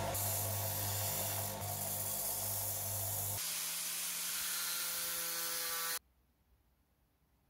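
Electric grinder running with a steady motor hum and the hiss of steel being ground as a small steel drill bit is shaped. About three and a half seconds in the hum shifts to a higher pitch, and about six seconds in the sound cuts off suddenly to near silence.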